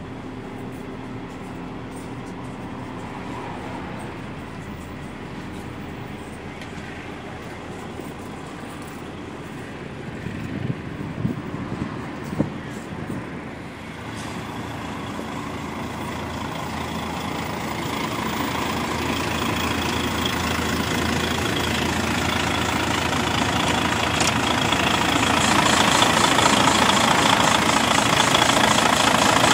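Van Hool TD921 Altano coach's diesel engine idling, growing steadily louder through the second half as the open rear engine bay draws near. A few short knocks come around the middle.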